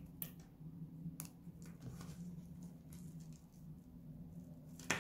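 Dry bar soap snapped and crumbled between the fingers: a few sharp, crisp clicks, then small crackles as brittle soap flakes are gathered up by hand, with a louder clatter near the end.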